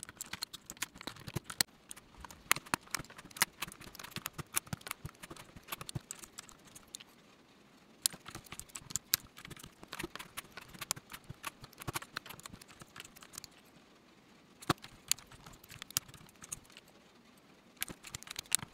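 Plastic keycaps being pulled off and pressed onto a mechanical keyboard's switches: irregular small clicks and clacks, with a couple of short pauses.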